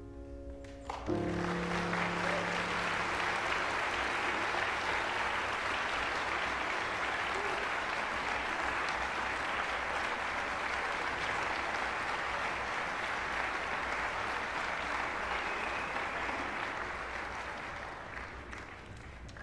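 The last held chord of a choir with piano stops about a second in and the audience breaks into applause, which holds steady and then thins out near the end.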